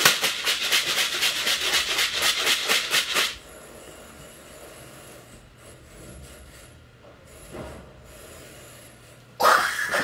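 A plastic tub being shaken fast, its contents rattling at about five shakes a second for roughly three seconds. Near the end, a short loud burst of sound.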